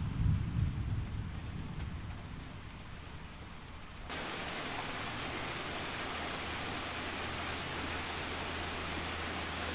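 Thunder rumbling low and fading over the first two seconds. About four seconds in, a steady hiss of rain starts abruptly and holds.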